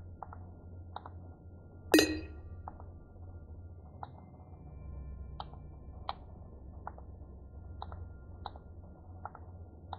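Soft, irregular clicks every half second or so over a low hum, with one short, ringing electronic hit about two seconds in that dies away quickly.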